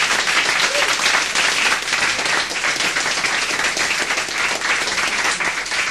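Audience applauding: steady, dense clapping from a full house.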